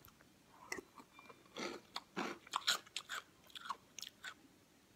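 A person chewing a mouthful of food close to the microphone: irregular wet mouth sounds and small clicks.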